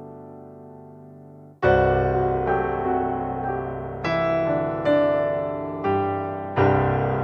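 Background piano music: a note dies away, then about a second and a half in, louder notes come in and new ones are struck every second or so.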